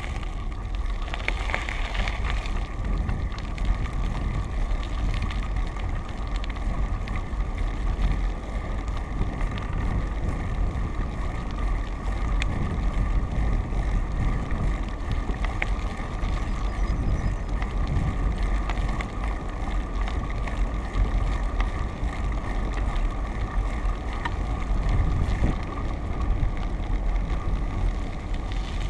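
Steady wind rush and low rumble from a camera riding on a moving vehicle along an asphalt road, with a faint steady hum.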